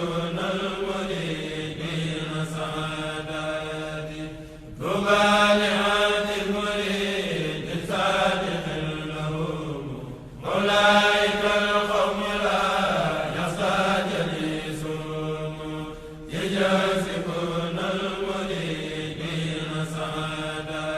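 A group of voices chanting religious verses together, in long held phrases that start again about every five and a half seconds.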